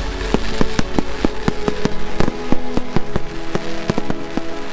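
Fireworks going off in quick succession: a rapid string of sharp bangs and crackles, several a second, over a low rumble, with music playing underneath.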